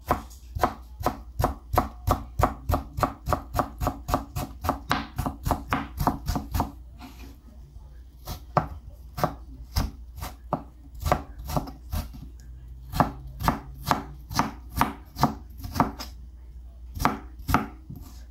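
Kitchen knife chopping watermelon rind into thin strips on a plastic cutting board, each stroke a sharp knock on the board. The strokes come quickly and evenly, about three a second, then pause briefly about seven seconds in and resume in looser runs.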